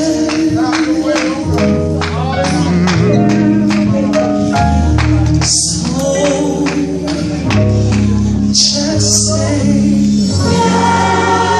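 Gospel song with singing over a steady beat and sustained bass notes, playing for a praise dance.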